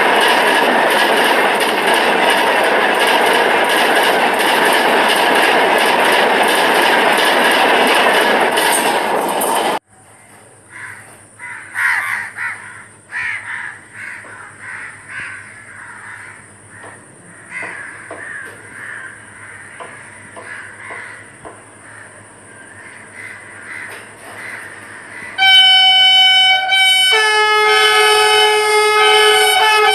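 A passing express train's coaches rushing by at speed, a loud steady roar of wheels and wind that cuts off abruptly about ten seconds in. Then crows cawing on and off, until, near the end, an approaching Vande Bharat train sounds its loud multi-note horn, which changes note partway through.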